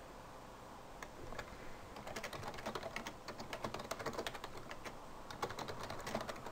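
Quiet, rapid clicking of a computer keyboard, starting about a second in and growing busier from about two seconds on.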